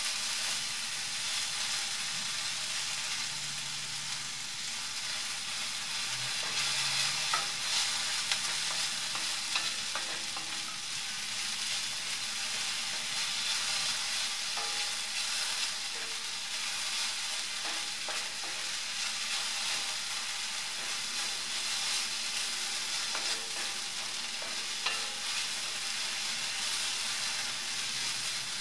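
Sliced red onions sizzling in hot coconut oil in a pan, stirred steadily with a wooden spatula that scrapes and turns them, with a steady frying hiss and scattered small clicks and scrapes.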